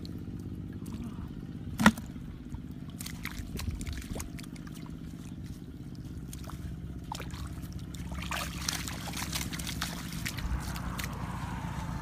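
Hands splashing and sloshing in shallow muddy water while grabbing at fish. There is a sharp click about two seconds in, busier splashing near the end, and a steady low hum underneath.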